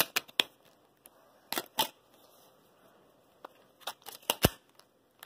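Scattered sharp plastic clicks and knocks from a VN530 phone being handled, about a dozen in all, with the loudest knock near the end.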